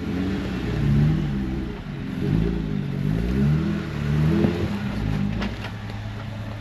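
An off-road 4x4's engine revving up and down repeatedly, as in a climb over roots and stumps. A few sharp knocks come about five seconds in.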